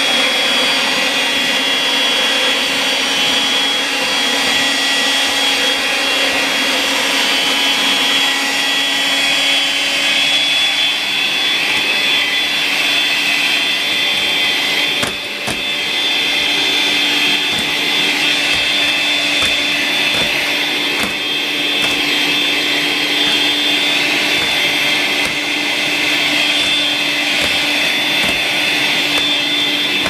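Makita CL107FD 10.8 V cordless stick vacuum running steadily on its powerful setting with a dust bag fitted: a high whine over rushing air as the floor nozzle sucks up cut hair. The sound dips briefly about halfway through, then carries on a little higher in pitch.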